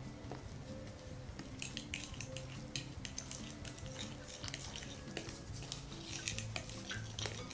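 Metal fork clinking and scraping against a glass mixing bowl as flour is stirred into a wet dough mixture, in quick irregular strokes, over soft background music.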